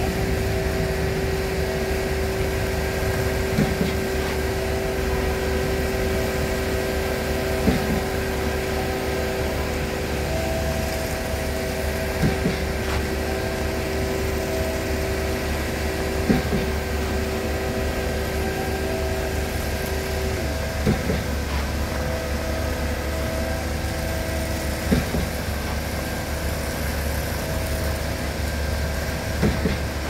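Concrete pump truck running steadily while pumping concrete through the delivery hose, with a short knock about every four seconds as each pump stroke changes over. A steady whine over the engine drops away about two-thirds of the way through.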